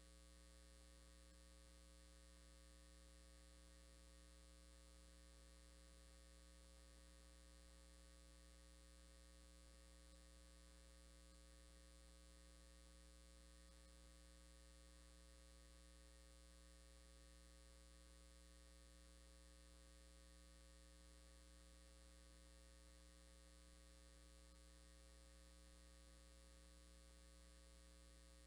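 Near silence apart from a faint, steady, low electrical mains hum that does not change.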